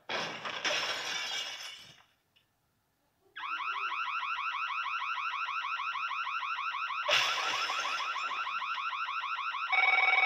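Glass breaking at the start. After a short silence a home burglar alarm goes off, a loud, rapidly repeating rising tone. Another crash comes about seven seconds in, and near the end a telephone starts ringing over the alarm.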